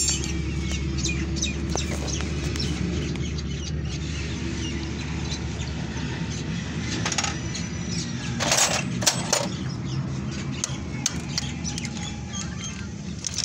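Metal hand tools, a spanner and a screwdriver, clicking and scraping against a motorcycle engine's exposed timing-chain side, with two louder metal knocks about two-thirds of the way through, over a steady low hum.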